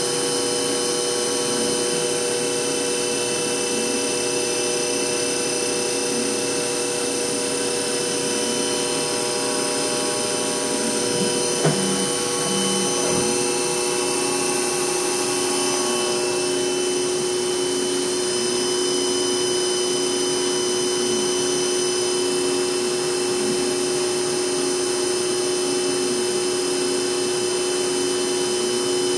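Hurco VM1 CNC vertical machining center running a program with its spindle at about 4,100 rpm and the axes moving, cutting air with no load: a steady whine made of several held tones over a whir. A single short click about twelve seconds in, and a slight shift in the tones a few seconds later.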